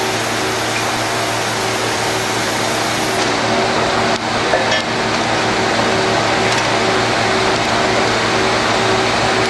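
Cutting torch of a CNC bevel cutting machine cutting steel: a steady hiss with a low electrical hum underneath. A few faint clicks come about four to five seconds in.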